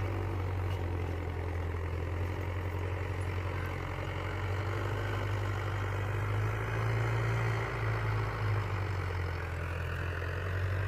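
Mahindra Yuvo 575 DI tractor's four-cylinder diesel engine running steadily at low speed, its pitch rising a little about two-thirds of the way through before settling back.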